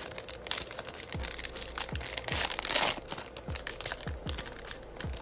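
Foil wrapper of a retail baseball card pack crinkling as fingers tear and peel it open, with the loudest ripping about two and a half seconds in.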